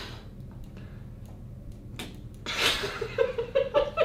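Men laughing: a quiet start, then about two and a half seconds in a breathy burst of laughter followed by quick, rhythmic chuckling.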